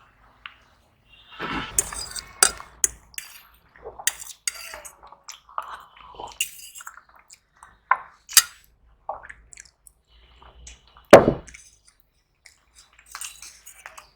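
Close-up eating sounds: wet chewing and mouth noises, broken by irregular clinks of a utensil or food against a plate, with one sharp, loud clink about eleven seconds in.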